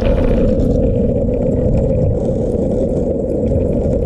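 Skateboard wheels rolling steadily over an asphalt path, a constant loud rumble.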